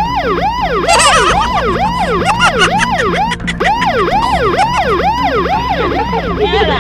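Fake police siren, an electronic siren sounding a rapid yelp: about two quick rising-then-falling sweeps a second, loud and even. It starts abruptly and stops near the end.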